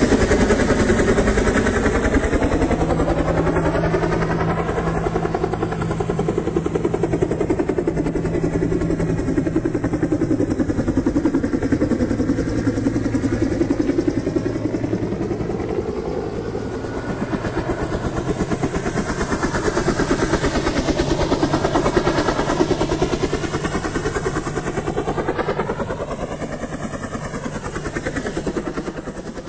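Large military turbine helicopter flying past and then hovering low: the steady chop of its main rotor over the run of its engines. The pitch bends as it moves past about two seconds in and again near the end, when it grows fainter.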